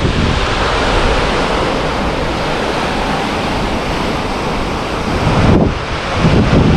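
Sea surf washing steadily onto a sandy beach, with wind buffeting the microphone. About five and a half seconds in the hiss thins and a low wind rumble grows.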